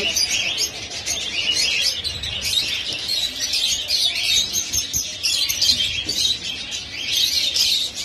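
A cage of rosy-faced (peach-faced) lovebirds chattering: many rapid, overlapping high chirps that never let up.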